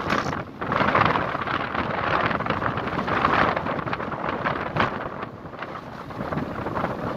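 Strong wind buffeting the microphone, rising and falling in gusts and easing somewhat in the last couple of seconds.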